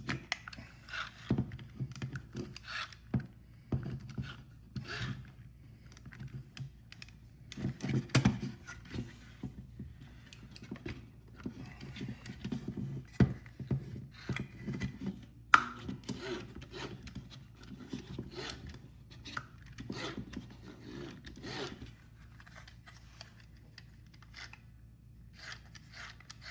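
A Roomba 960 wheel module being handled while a new rubber tire is worked onto its plastic wheel and checked, with irregular clicks and scrapes of plastic and rubber.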